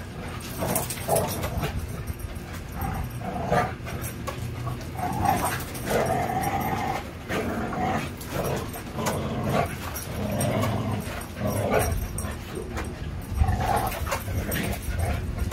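Bully-type dogs playing tug-of-war on a spring pole rope, giving short, repeated play vocalizations at irregular intervals, one of them drawn out for about a second, over the scuffle of their play.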